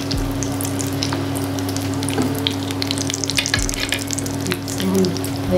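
Egg-and-breadcrumb-coated potato kababs shallow-frying in hot oil in a pan: a steady sizzle dotted with frequent small crackles and pops.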